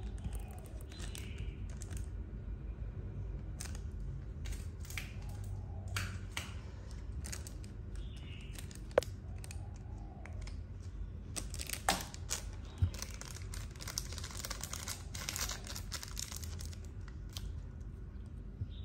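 Handling noise: scattered sharp clicks, with a stretch of crinkling rustle in the middle.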